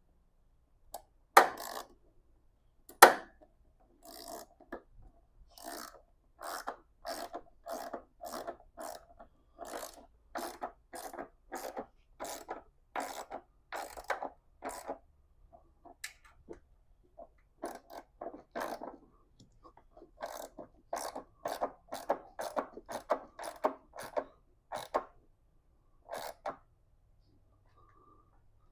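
Ratchet wrench worked in short back-and-forth strokes, about two a second, tightening a nut on a car battery's hold-down or terminal. Two sharp metal knocks come just before the ratcheting starts.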